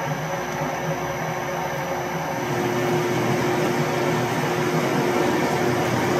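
Metal lathe running with its spindle turning: a steady hum with a constant mid-pitched tone.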